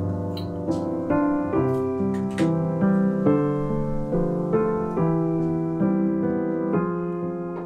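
Gentle background piano music: sustained notes that change every half second or so, with a few short clicks over it.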